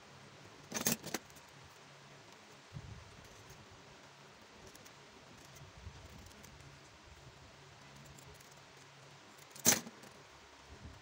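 Metal scissors clinking sharply twice, about a second in and again near the end, with a few faint snips and rubber-handling sounds in between as the edge of a rubber sandal sole piece is trimmed.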